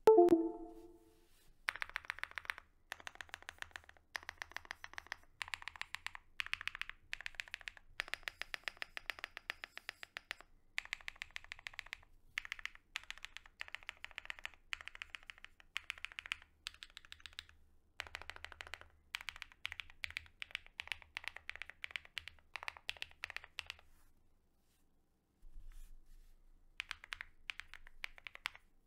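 Modifier keys on an Owlabs Mr. Suit R3 custom mechanical keyboard (PC plate, full foam, lubed Tungsten switches with milky tops, PBT keycaps, lubed Owlstab stabilizers), pressed over and over in quick runs of about a second each, one key after another, with a short pause near the end. A brief, loud pitched sound comes right at the start.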